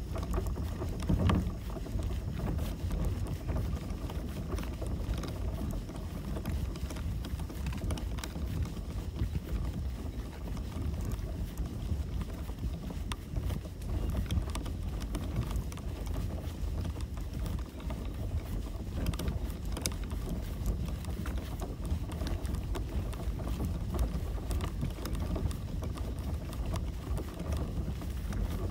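Paddling a kayak: water splashing and dripping around the paddle and hull, over a steady low rumble of wind on the microphone.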